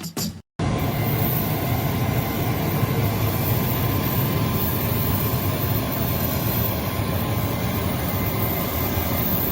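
Steady, unchanging jet aircraft noise, as of a private jet's engines and airflow, starting abruptly about half a second in.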